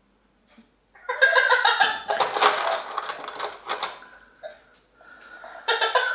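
A man's high-pitched wordless vocal noises, squeal-like, about a second in, followed by a louder rush of noise with sharp clicks, and another short high-pitched cry near the end.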